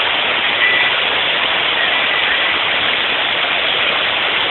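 Steady rush of river water pouring out through the open gates of a barrage.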